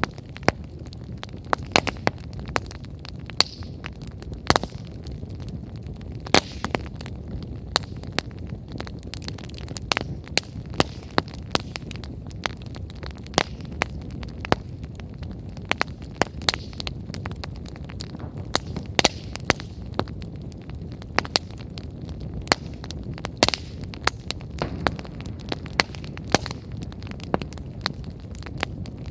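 Wood bonfire burning on freshly added firewood: sharp, irregular crackles and pops, several a second, over the steady low rush of the flames.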